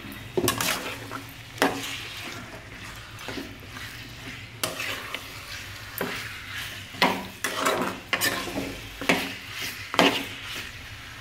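A metal spatula scraping and knocking against a kadai as raw chicken pieces are stirred in hot oil, over a faint sizzle. The scrapes come irregularly, about one every second or two.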